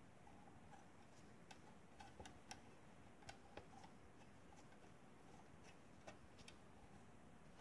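Near silence: faint room tone with a few scattered, irregular faint ticks.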